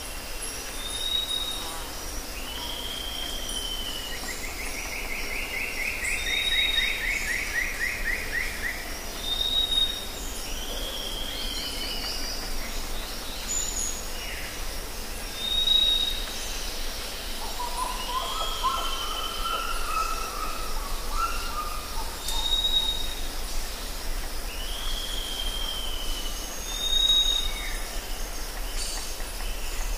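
Forest ambience with several birds calling. A short high whistle repeats every few seconds among shorter down-slurred calls, a long falling trill starts about four seconds in, and a lower warbling phrase comes near the middle, all over a steady faint hiss.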